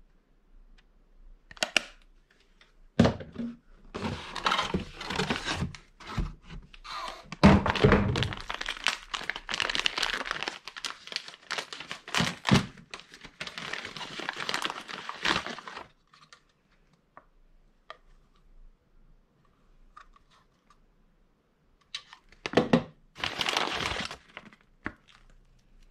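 Brown paper bag being crinkled and torn open by hand, in a long stretch of rustling and crackling with a few knocks. The bag rustles again in a shorter burst near the end.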